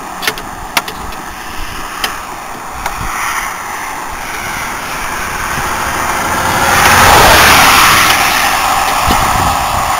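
Interstate traffic passing close by: a vehicle's tyre and engine noise swells to a loud peak about seven seconds in, then eases off. A few sharp metallic clicks of hand tools come in the first three seconds.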